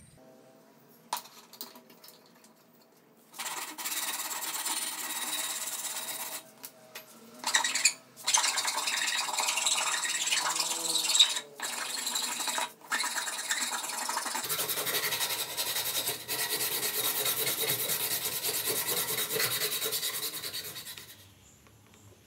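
A hand-held abrasive tool scraped rapidly back and forth along a thin wooden strip clamped in a vise, a dense rasping sound. It starts about three seconds in, pauses briefly a few times, gets heavier about halfway through, and stops shortly before the end. A couple of light knocks come about a second in.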